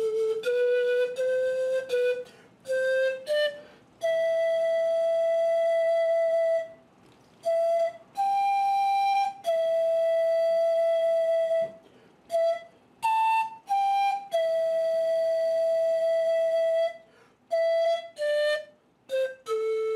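Zampoña (Andean cane panpipes) played solo: a slow, breathy melody of single notes, several held for two to three seconds, with short quicker notes between them.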